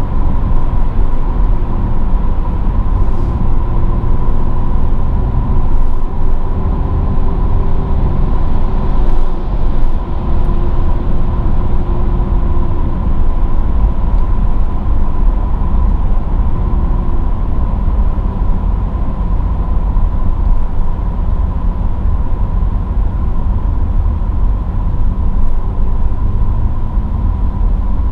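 Mercedes-AMG GLE 43 driving: a loud, steady low rumble of engine and road noise, with a faint engine note wavering in pitch during the first half and a thin steady high tone over it.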